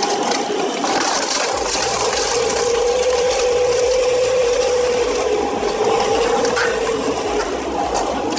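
Heavy land-clearing machinery running steadily: a sustained whine that wavers slightly in pitch, with a fainter higher tone, over a dense grinding noise.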